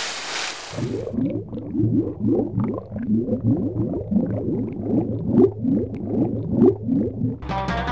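Cartoon splash sound effect as the submarines plunge under the water, followed by a long run of quick, low bubbling blips, the sound of bubbles underwater. Music comes in near the end.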